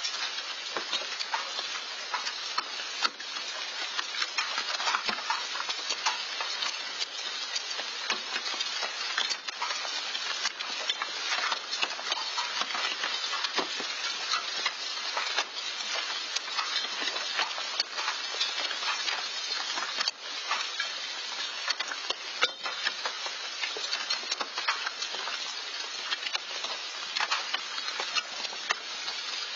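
Hail falling with rain, a steady, dense patter of countless sharp ticks as individual hailstones strike the ground and the things around it.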